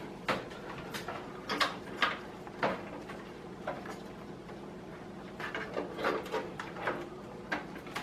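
PCIe power cables and their connectors being pushed and tugged through a tight cable-routing cutout in a PC case, giving irregular clicks, taps and rustles of plastic against the case panel, bunched together a little after the middle.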